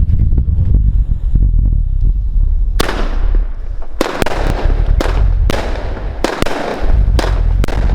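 Consumer fireworks battery (cake) firing: after a low rumble, the first shot goes off about three seconds in, followed by a rapid run of about ten more sharp bangs, each trailing a hissing crackle.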